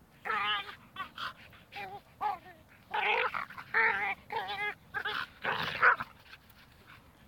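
Samoyed making play vocalizations: a string of about eight short, wavering, high-pitched whining cries and yips, loudest about three seconds in and again near six seconds.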